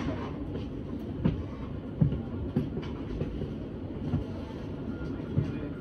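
S-Bahn commuter train running on the track: a steady low rumble with irregular clunks from the wheels over rail joints, roughly one a second.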